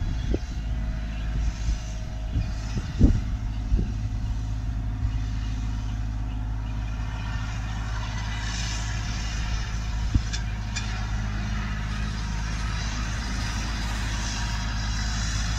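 Compact tractor's diesel engine running steadily as the tractor drives past, with a few low thumps in the first four seconds.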